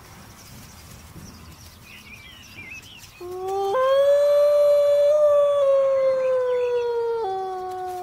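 A man's imitation of a wolf howl, used to call young wolves. One long howl begins about three seconds in, jumps up in pitch, slides slowly down, and drops back near the end. Faint bird chirps come before it.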